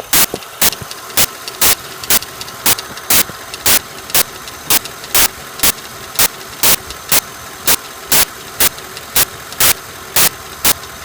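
Lincoln Town Car's 4.6-litre V8 idling with a loud, sharp tick repeating evenly about twice a second. The owner suspects a lifter is making the tick.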